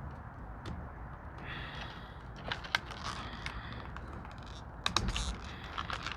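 Scattered sharp clicks and rustling from hands handling small metal tools and plastic packaging, with a cluster of clicks around the middle and again near the end.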